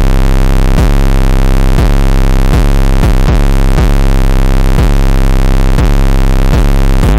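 Very loud, heavily distorted electronic music with droning bass and a steady pounding beat, about one hit every three-quarters of a second.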